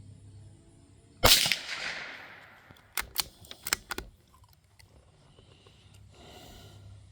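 A single .22 LR shot from a Savage Mark II bolt-action rifle cracks once and echoes away over about a second. Roughly two seconds later comes a quick run of metallic clicks as the bolt is worked to eject the case and chamber the next round.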